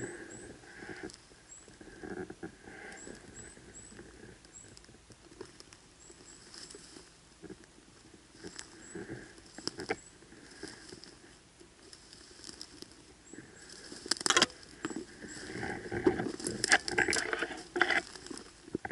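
Dry grass, stems and twigs rustling and crackling against the camera holder's body and legs while pushing through dense dry brush on foot. It gets louder in the last five seconds, with several sharp twig snaps.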